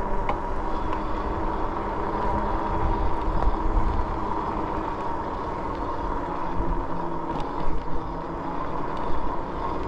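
The Rad Rover e-bike's 26 x 4-inch fat tires humming steadily on pavement as it rolls along, over a constant low rumble.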